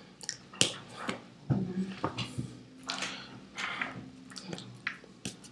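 Irregular soft slaps, clicks and rustles of hands and hoodie sleeves from a person signing, with faint mouth noises, in a small room.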